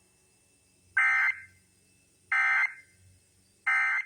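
Emergency Alert System end-of-message code: three short, loud bursts of SAME digital data tones, a little over a second apart, marking the end of the alert.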